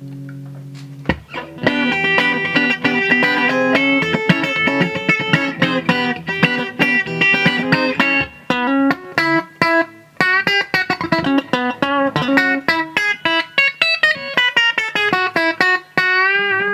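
Clean electric guitar, a Fender Telecaster through a Fender Super 210 tube amp, playing chords: a held chord, then a run of strummed chords, then single picked notes, ending on a held note with a wavering vibrato.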